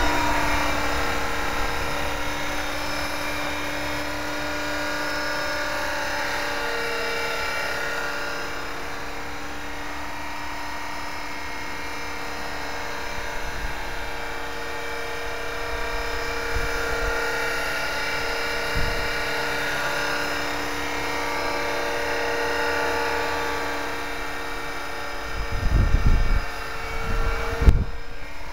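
A 450-size electric RC helicopter in flight: a steady motor and rotor whine whose pitch slowly rises and falls as the throttle changes. Near the end, a few low rumbling thumps come in.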